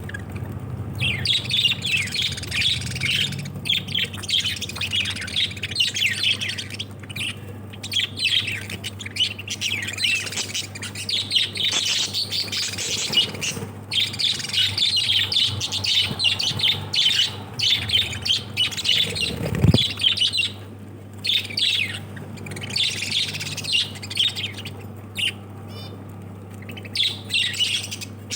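A group of lovebirds chattering and squawking in rapid, high-pitched chirps, broken by short pauses, over a steady low hum.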